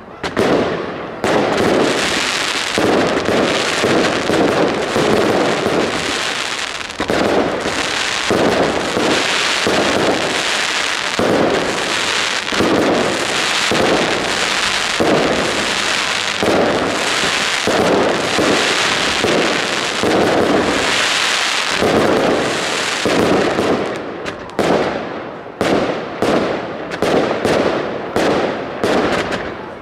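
Consumer fireworks display going off: a dense, almost unbroken barrage of bangs and crackle from aerial bursts. Near the end it thins into separate sharp cracks, several a second.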